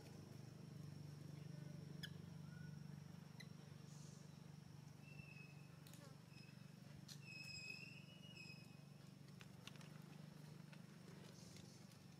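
Near silence: faint outdoor ambience with a steady low hum and a steady high tone, broken by a few short high whistle-like calls about five and eight seconds in, and a few faint ticks.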